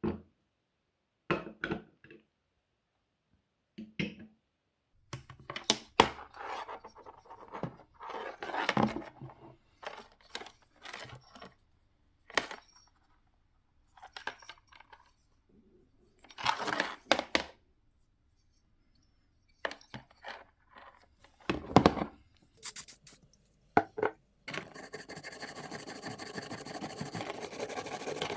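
Parts of a Makita BTD140 cordless impact driver being handled during a repair: scattered scrapes, clicks and small metallic clinks with silent pauses between. A continuous noise starts about four seconds before the end.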